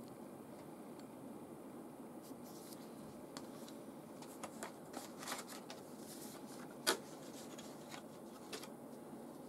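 Clear plastic packaging box being handled and opened and paper leaflets pulled out of it: scattered plastic clicks and paper rustles, the loudest a sharp click about seven seconds in, over steady low background noise.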